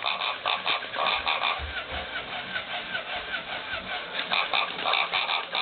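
Toy pig sounding in a rapid, even run of short high-pitched pulses, about five a second.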